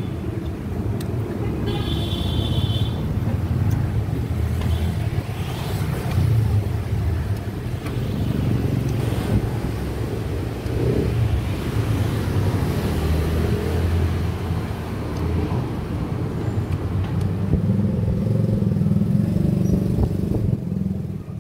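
Street traffic: motor vehicle and motorbike engines running and passing, with a brief high tone about two seconds in.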